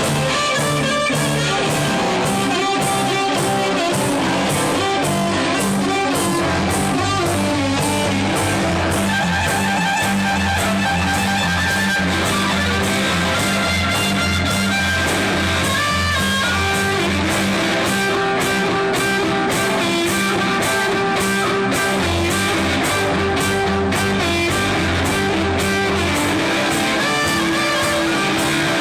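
Band playing blues: guitar over walking bass notes and a steady drum beat.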